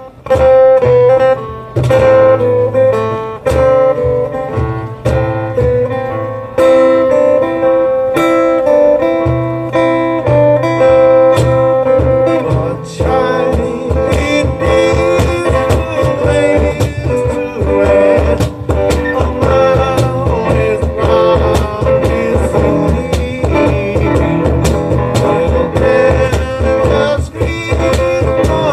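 A small acoustic band plays an instrumental passage: acoustic guitar and keyboard, with cajon percussion. The music starts all at once, and the beat becomes steady and busier about halfway through.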